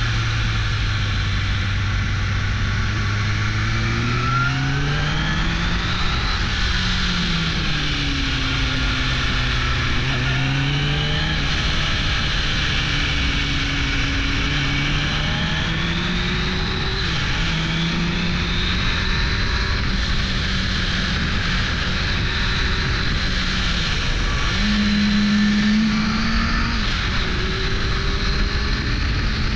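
1998 Suzuki GSX-R 600 SRAD's inline-four engine running under way, its pitch climbing and dropping several times as the bike accelerates and eases off through the bends, over a steady rush of wind noise.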